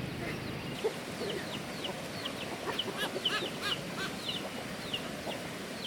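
Chickens calling: a run of short, high, falling peeps and clucks, thickest around the middle.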